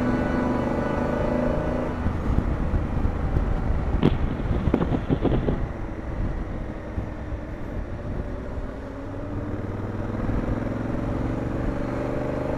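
Motorcycle riding along a road: engine running under wind rumble, with a few knocks about four to five seconds in and the engine note rising as it accelerates near the end.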